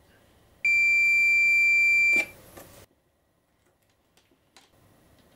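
Digital multimeter's continuity beeper giving one steady, high-pitched beep of about a second and a half, starting just under a second in. It signals continuity: the two wires bridged at the wiring centre are confirmed as the thermostat's wires.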